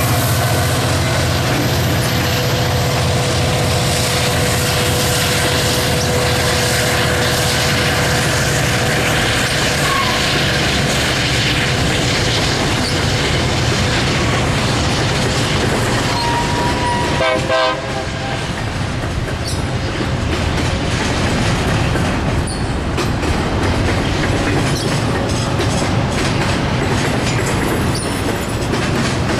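Freight train hauled by Union Pacific diesel locomotives rolling past close by: a steady rumble of steel wheels on rail with clickety-clack and some wheel squeal. A short pulsing tonal sound comes about two-thirds of the way through.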